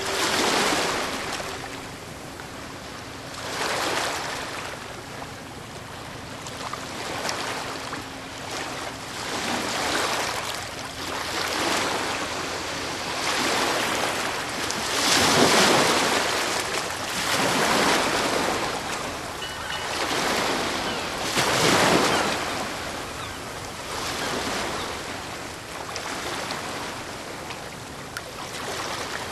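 Ocean waves breaking and washing in, the rush of surf swelling and fading every few seconds, with the biggest surges about fifteen and twenty-two seconds in.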